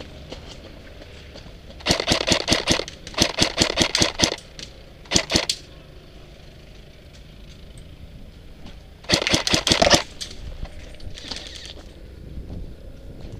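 Airsoft electric rifle firing four rapid full-auto bursts of sharp clicks: the first about 2 seconds in, a longer one just after, a short one about 5 seconds in, and another about 9 seconds in.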